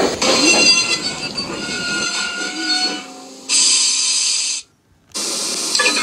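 A string of separate sound-effect clips joined by hard cuts, mostly steady hissing with some thin steady tones in the first part. The hiss cuts off abruptly for a short silence about five seconds in, then starts again.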